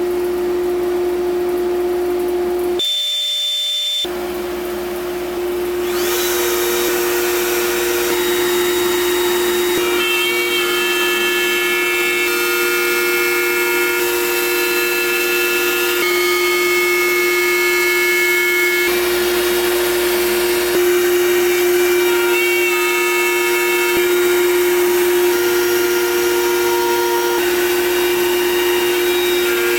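CNC router spindle running with a steady whine while the router bit cuts wood, a loud, rough noise over the tone.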